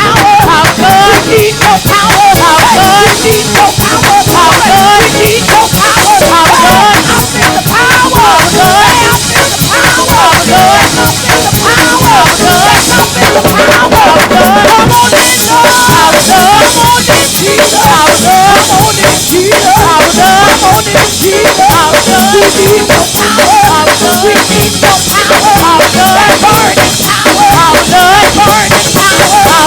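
Live gospel praise band playing a fast, dense groove: a drum kit with busy snare and cymbal strokes under a wavering melody line.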